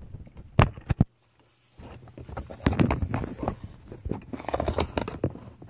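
Handling noise from a phone being taken down and moved to another mount: fingers rubbing and tapping on the phone, with a series of sharp knocks and clicks and a brief drop-out about a second in.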